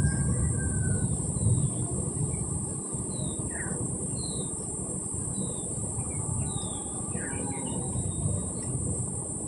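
Outdoor ambience: birds chirping briefly every second or so over a steady low rumbling noise and a constant high hiss.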